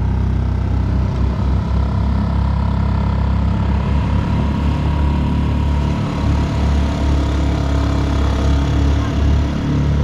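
Dinghy outboard motor running steadily, a low engine drone with a thin steady whine above it.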